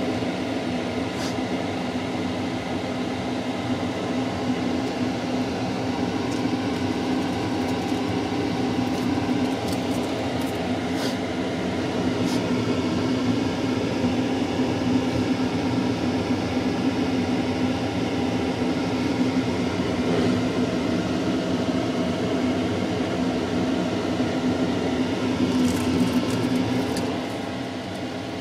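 A steady machine hum, a fan-like drone with several held low tones, with a few faint ticks now and then.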